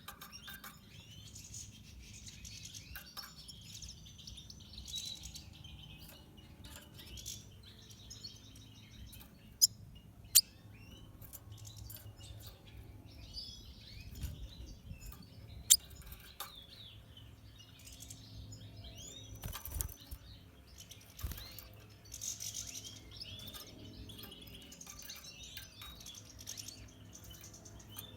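Red siskin twittering and chattering continuously in quick, high, gliding notes. Three sharp clicks stand out, two close together about ten seconds in and one a few seconds later, over a steady low hum.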